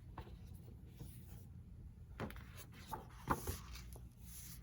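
Quiet handling of a hardcover journal: faint rustling of cover and pages with a few light taps, the clearest about two and three seconds in.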